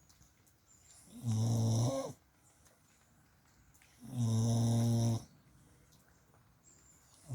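Slow, steady snoring: two long pitched snores about three seconds apart, each lasting about a second, with a third beginning right at the end.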